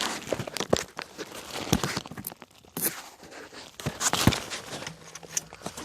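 Irregular clicks, knocks and scuffs of tools and pipe being handled, a dozen or so sharp knocks spread unevenly with quieter gaps between.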